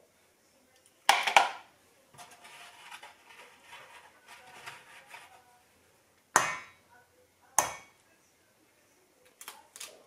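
Kitchen utensils knocking against a mixing bowl: three sharp knocks, one about a second in and two close together near the end, with softer scraping and clatter in between.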